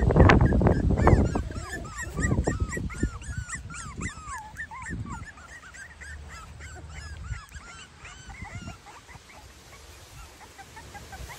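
Four-week-old Cavalier King Charles Spaniel puppies whimpering: many short, high squeaks, each rising and falling in pitch, several a second, thinning out toward the end. Loud rustling in the first second or so.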